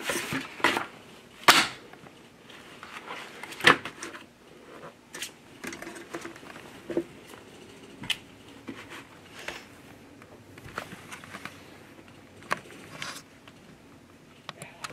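A pen and small objects handled on a desk: irregular sharp clicks and knocks, the loudest few in the first four seconds, then fainter taps.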